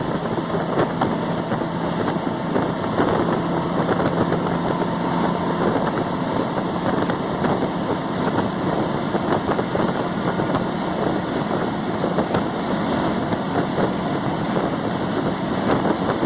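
Chevrolet S10 pickup on big tires driving fast, heard from inside the cab: steady engine, tyre and wind noise.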